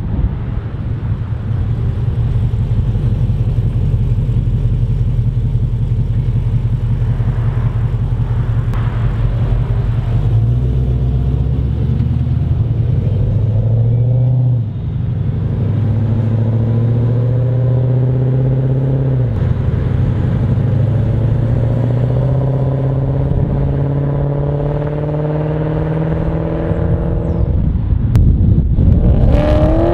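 Holden Commodore SS V8 running through its new exhaust on the road: a low steady drone at first, then the engine note climbs under acceleration, drops suddenly twice as it shifts up, and climbs again.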